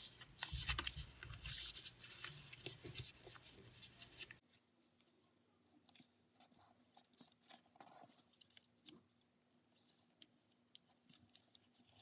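A sheet of origami paper rustling and crackling as fingers fold and crease it. It is busiest for the first four seconds or so, then only faint scattered crackles.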